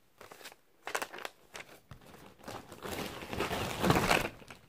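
Plastic packaging crinkling as it is handled: a few short crackles, then a longer, louder stretch of rustling from about two and a half seconds in until shortly before the end.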